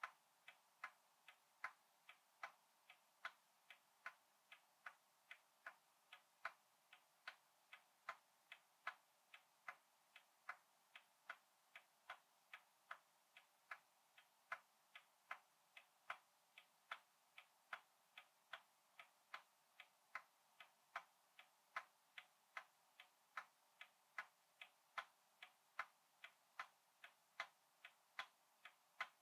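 Faint, steady ticking of a 100-year-old antique clock, a little more than one tick a second.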